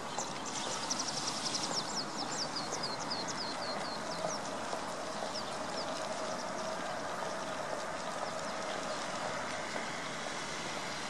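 Sparrows chirping: a quick run of short, falling chirps over the first four seconds or so, then only a few scattered chirps, over steady background noise with a faint hum.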